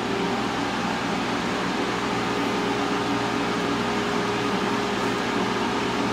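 IMUSA Easy Fry air fryer running mid-cook: a steady fan whir with a faint constant hum.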